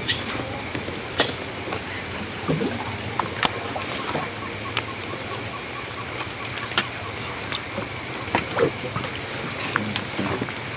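Night-time chorus of crickets, a steady, high, slightly pulsing trill, with scattered sharp clicks and knocks from things being handled close by.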